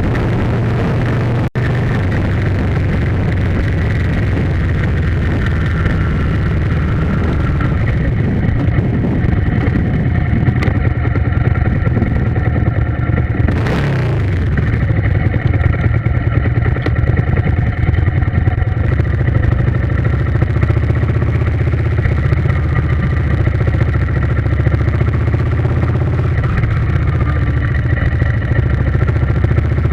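Vehicle engine running steadily at an even pitch, with a short whoosh about halfway through.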